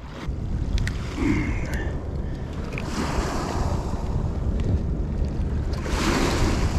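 Wind buffeting the microphone with a steady low rumble, in gusts that swell about three seconds in and again near the end.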